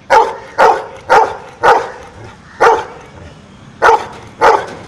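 Golden retriever barking seven loud single barks, four in quick succession, then after a pause three more, counting out the answer to a sum.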